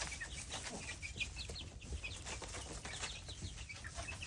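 A group of three-week-old chicks peeping: many short, high chirps overlapping, several a second.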